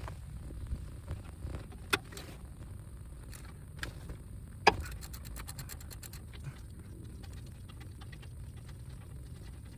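Socket wrench being worked on the 18mm brake bolts: a few sharp metallic clicks, the loudest a little under five seconds in, then a quick run of ratchet clicks lasting about a second.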